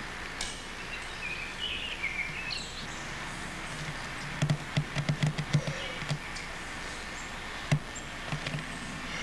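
Outdoor ambience with birds chirping in the first few seconds. About halfway through comes a quick run of sharp knocks, and a single knock follows near the end.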